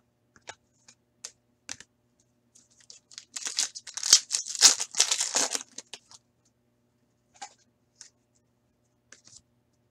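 A foil trading card pack being torn open and crinkled by hand, loudest in a few-second burst of tearing in the middle, with a few light crinkles and clicks before and after.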